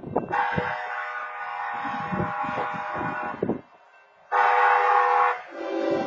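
Railroad crossing wayside horn sounding a steady multi-tone blast for about three seconds, breaking off briefly, then starting again; about five and a half seconds in the chord drops lower. Underneath, the wheels of freight hopper cars rumble and clatter past.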